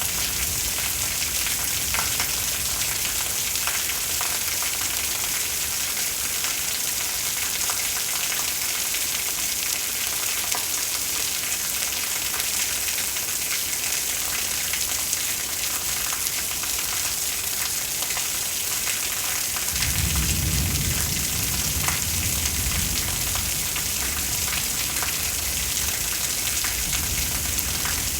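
Steady hiss of heavy rain. About two-thirds of the way through, a low rumble of thunder swells in and fades over several seconds.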